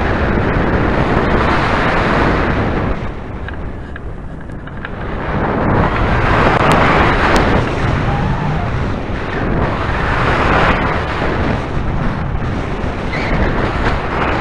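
Wind rushing over the microphone of a hang glider's onboard camera in flight: a loud, continuous rush that eases for a moment about three seconds in, then swells again.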